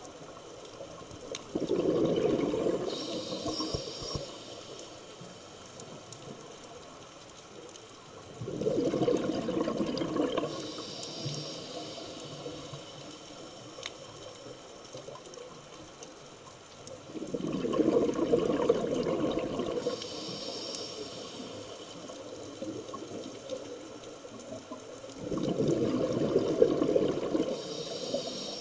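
Scuba diver breathing through a regulator underwater: four breaths about eight seconds apart. Each is a two-to-three-second rush of exhaled bubbles followed by a shorter, higher hiss.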